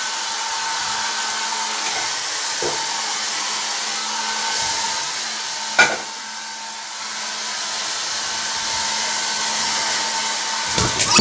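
Hair dryer blowing steadily, drying a wet blue-and-gold macaw's feathers after a shower. A short sharp click cuts in about halfway, and a louder burst comes right at the end.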